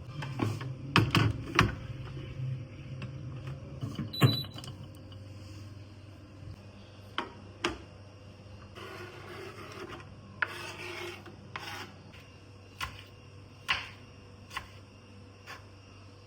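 Kitchen handling sounds: scattered sharp clicks and knocks of utensils and containers, the loudest in the first few seconds, with two short scraping rubs about nine and eleven seconds in.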